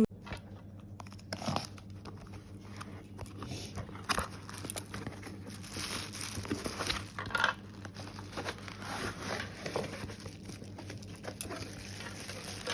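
A parcel's packaging being opened by hand: irregular crinkling, rustling and tearing with scattered small knocks and scrapes.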